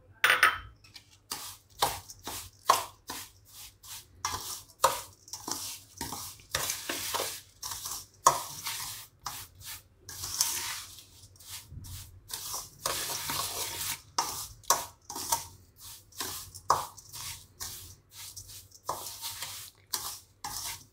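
Steel spoon stirring and scraping a coarse pickle spice mix of crushed fenugreek and mustard seeds around a stainless steel bowl. It goes in quick repeated scraping strokes, roughly two a second, with some longer rasping scrapes.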